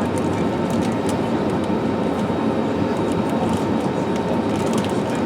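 Steady cabin noise inside an Airbus A320neo under way: a continuous deep rumble of engines and airflow, with a faint steady hum on top.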